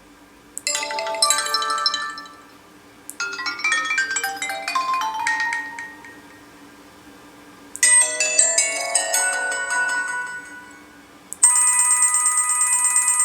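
HTC Desire 610 ringtone previews playing one after another: four short melodic phone ringtones, starting about half a second, three, eight and eleven seconds in, each lasting two to three seconds.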